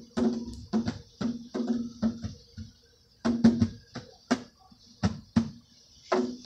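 Irregular hollow knocking, several strikes a second, each ringing at the same low pitch like a struck drum, with a short pause just before the three-second mark.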